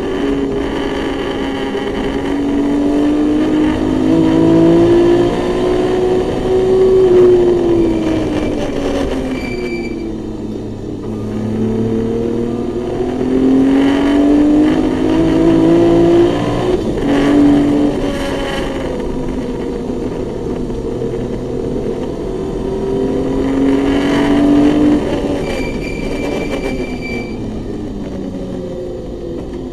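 Naturally aspirated 2.7-litre M20 straight-six of a BMW E21 race car, heard from inside the cabin under hard driving. The revs climb three times and drop sharply after each climb, then fall away near the end.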